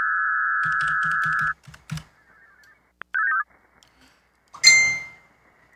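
A VARA HF digital modem signal, a steady band of data tones, that stops about a second and a half in. Computer keyboard typing overlaps its end. A short warbling data burst follows, and then a sharp, ringing electronic beep, the loudest sound, near the end.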